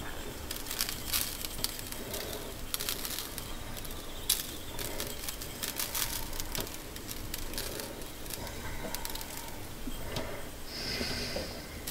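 Pink salt sprinkled by hand from a small dish onto a raw leg of lamb: scattered, irregular small ticks of grains landing, with a short hiss near the end.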